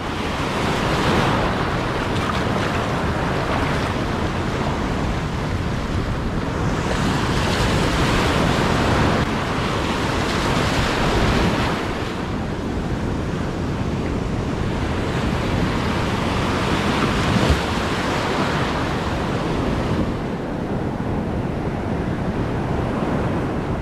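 Ocean surf breaking and washing up the sand around the microphone, swelling and easing every few seconds, with a low rumble of wind on the microphone.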